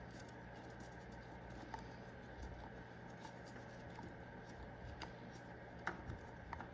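A few small clicks and taps of a nut being started by hand on a motorcycle's oil filter cover, over a faint steady hum.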